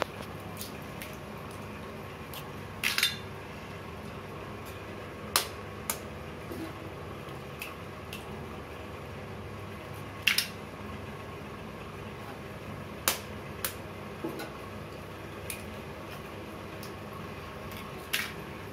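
Eggs cracked one by one against the rim of an aluminium pot: sharp clicks of shell on metal, several seconds apart, over a steady hiss.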